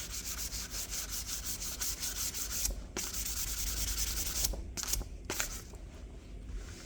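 Sandpaper rubbed back and forth by hand over a metal door-lock part, about five quick strokes a second. There is a brief pause about three seconds in, and the strokes thin out to a few separate rubs near the end.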